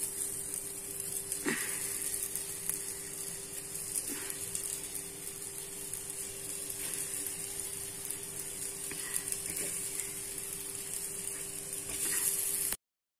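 Light sizzling of oil in a preheated aluminium pressure cooker as balls of litti dough are set into it one by one, with a few soft taps as they land.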